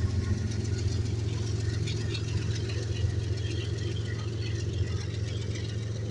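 CSX diesel-electric locomotives of a departing freight train passing close by, their diesel engines running with a steady low drone and scattered clicks and rattles over it.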